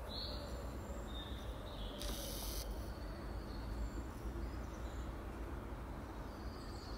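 Steady outdoor background noise with a low rumble, a few faint high chirps, a brief hiss about two seconds in, and a thin steady high whistle near the end.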